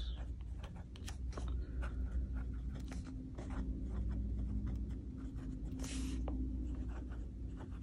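Fountain pen nib writing on notebook paper: a run of short, light scratching strokes as a line of handwriting is written, over a faint steady hum.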